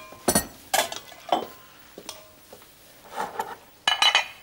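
Metal utensil scraping and knocking in a wok as a stir-fry is tossed and scooped out, with a few separate knocks, and the loudest sharp clinks about four seconds in as food is served onto a china plate.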